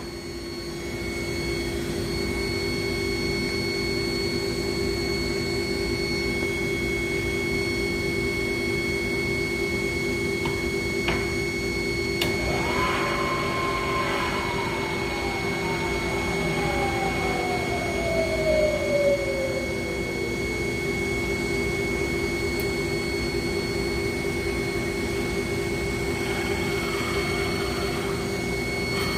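Bridgeport Series One vertical milling machine running, its motor and spindle giving a steady hum. About halfway there are a couple of clicks, then a whine comes in and slowly falls in pitch over several seconds.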